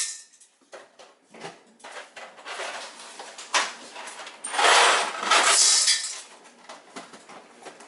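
Dry pasta pouring out of a cardboard box into a metal strainer, a rattling cascade of hard pieces on metal. A few scattered clicks come first, then a longer pour of about two and a half seconds starting three and a half seconds in.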